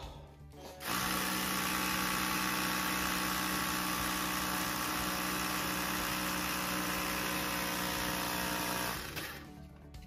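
Ryobi cordless air inflator running steadily for about eight seconds, switching on about a second in and cutting off near the end, putting a little air into a bicycle inner tube so it holds its shape before being fitted into the tyre.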